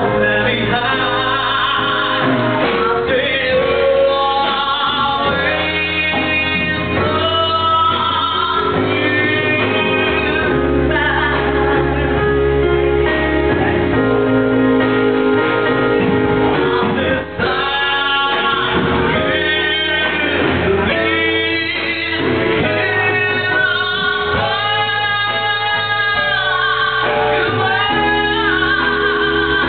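Live band music with a male vocalist singing into a microphone, backed by drums and keyboard, in one continuous sung passage.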